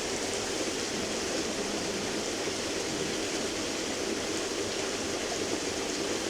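Waterfall and stream water rushing steadily, a constant even hiss with no breaks.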